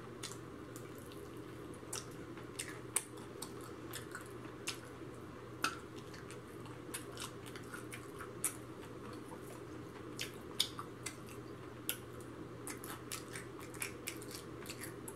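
Eating fried chicken wings: scattered small wet clicks, lip smacks and crackles of chewing and of the fried chicken being pulled apart by hand, irregular and a few each second, over a steady low hum.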